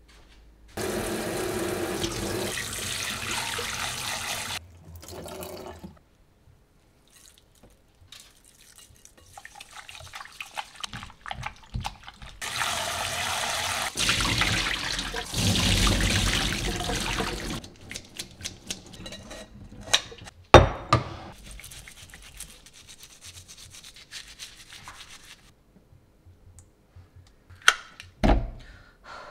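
Tap water running and splashing into a stainless steel sink as oysters are rinsed in a metal strainer, in several stretches, loudest about halfway through. A few sharp clinks of metal come in the second half.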